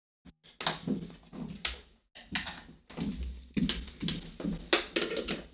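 Hands plugging a Kinect's cable into a small plastic controller box and handling cables and plastic parts on a tabletop: a string of irregular knocks and clicks.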